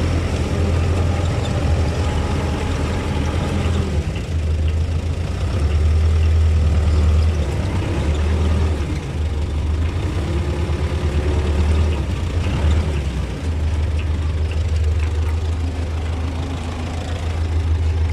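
T-40 tractor's diesel engine running with a heavy low rumble, its revs rising and falling a little while it works.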